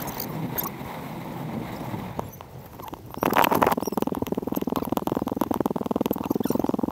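Wind noise on a helmet camera's microphone. About three seconds in, a loud, rapid, buzzing pulse cuts in suddenly and keeps going.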